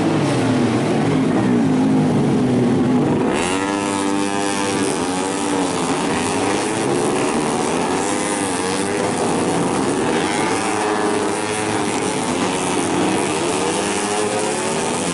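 Several tuned four-stroke underbone race motorcycles going by at racing speed, their engines revving and shifting with pitches rising and falling over one another. One engine's pitch drops in the first seconds, then a louder pack of bikes comes in about three seconds in.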